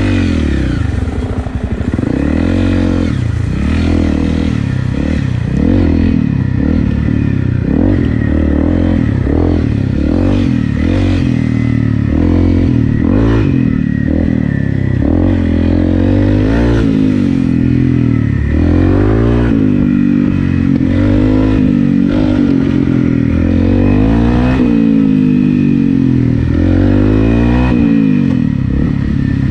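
Honda CRF250 Rally's single-cylinder four-stroke engine, fitted with an FMF PowerCore 4 exhaust, running under way. Its revs rise and fall every second or two as the throttle is opened and closed.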